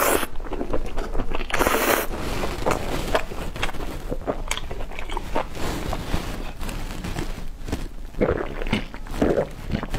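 Hard-shell tacos being bitten with a loud crunch twice in the first two seconds, then chewed with many small crackling clicks. Near the end come gulps of soda from a plastic bottle amid the chewing.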